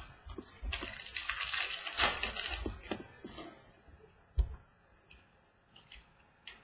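Crinkling and rustling of trading-card packs and cards being handled on a tabletop for about two seconds, then a single knock about four seconds in and a few faint ticks.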